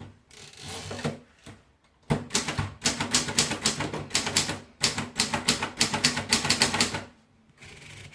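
Oliver typewriter being typed on: a fast, uneven run of key strikes lasting about five seconds. A short rasp comes near the start, and a fainter one near the end.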